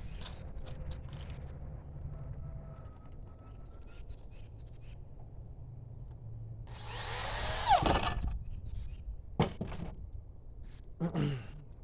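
A power drill runs into wood for about a second and a half about seven seconds in, its pitch falling as the motor slows under load. Two sharp knocks follow.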